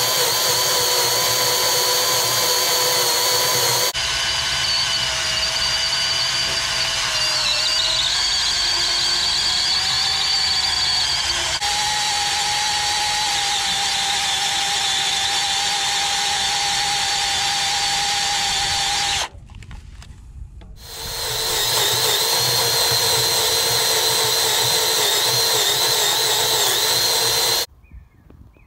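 Power drill boring a 3/4-inch twist bit through a thick steel I-beam flange, running steadily with a whine. About two-thirds of the way through it stops, spins back up a second and a half later, and stops again near the end.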